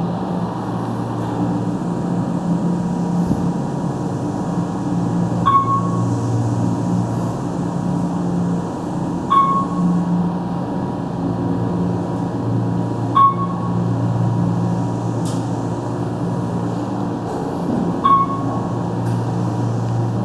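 Otis Series 1 elevator running: a steady low hum, with a short ding four times, roughly every four seconds.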